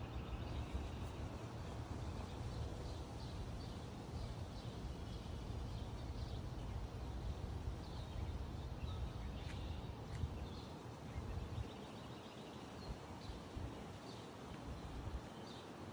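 Morning breeze with a low wind rumble on the microphone, easing off about eleven seconds in, and birds chirping in short, scattered calls.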